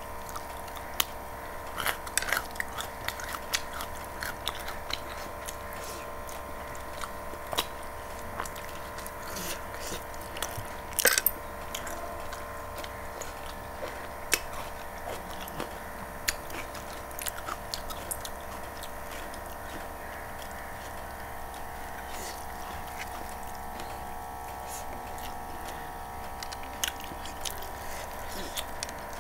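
Close-miked chewing and wet mouth sounds of someone eating rice and chicken curry by hand: scattered smacks and clicks, the loudest cluster about eleven seconds in, over a steady background hum.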